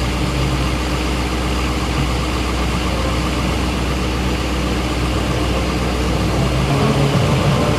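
Steady low engine hum of jet aircraft running on an airfield flight line. Its tone shifts about two-thirds of the way through.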